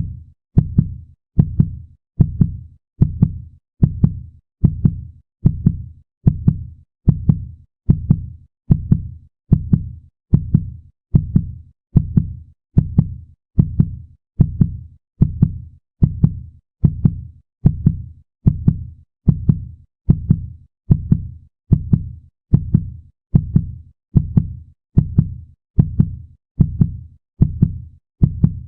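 Human heartbeat sound effect beating fast and steadily, about one and a half beats a second. Each beat is a deep low thump in a double lub-dub.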